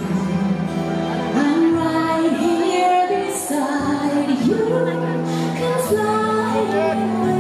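Slow ballroom waltz music with a sung vocal line over sustained accompaniment.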